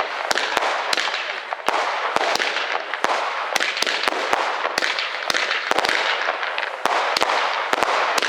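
Fireworks going off in a dense run: a continuous crackling hiss with many sharp bangs, several a second.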